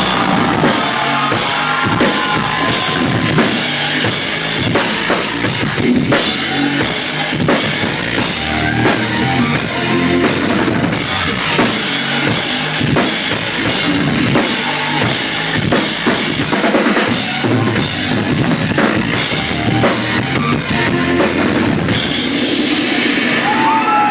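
Live rock drum solo on a drum kit: a dense, continuous run of drum strikes with bass drum and cymbal crashes.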